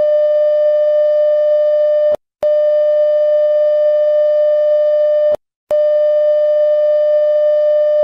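Electronic emergency-alert attention tone: a loud, steady buzzing beep at one pitch, repeated in long beeps of nearly three seconds each. It breaks off briefly about two seconds in and again about five seconds in.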